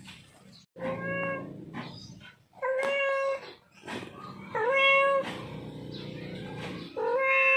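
Tabby-and-white tomcat meowing four times, each call about half a second long and fairly steady in pitch: a male cat in heat calling for a female.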